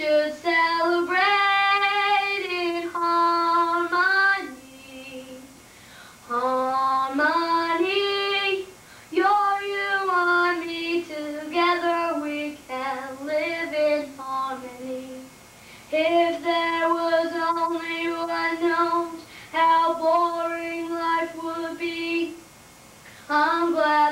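A young girl singing solo without accompaniment, in long held notes, pausing briefly between phrases.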